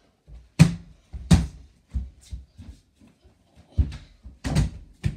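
Mini basketball bouncing and hitting against the over-the-door hoop and door: about half a dozen sharp thuds at uneven spacing, the loudest about half a second and a second and a half in.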